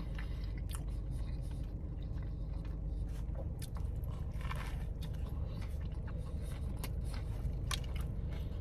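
A man chewing and biting into a candied bacon Whopper, with short crunches from its crispy onions and bacon and a brief noisier stretch as he takes a bite about four seconds in. A steady low hum runs underneath.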